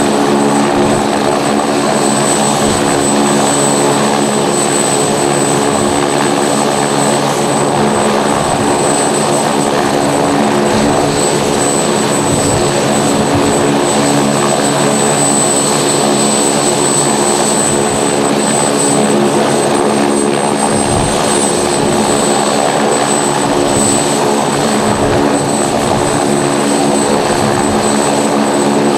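Helicopter running on the ground, its turbine engine and turning rotors making a steady, unchanging drone with a constant high-pitched turbine whine.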